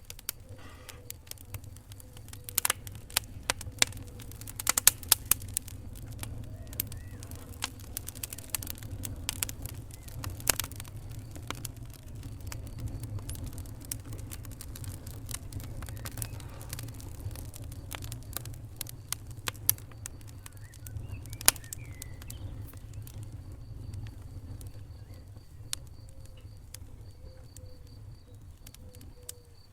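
Wood fire in a fireplace crackling: sharp pops and snaps scattered irregularly, thickest in the first few seconds and with a loud pop about two-thirds of the way in, over a steady low rumble of the flames.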